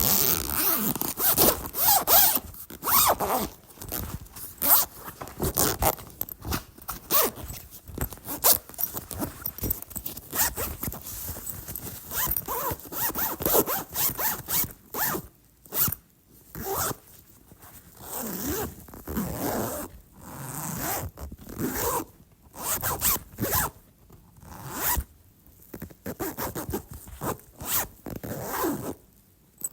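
A bag's zipper being pulled open and shut over and over, zips of varying length with short pauses between them.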